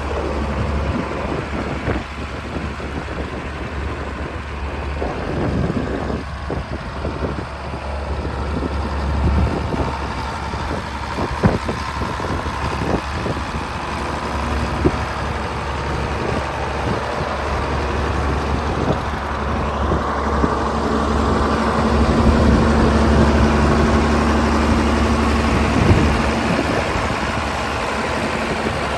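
John Deere 4010 loader tractor's six-cylinder engine running at a steady low speed as the tractor is driven around, with a few sharp knocks. It gets louder about two-thirds of the way through.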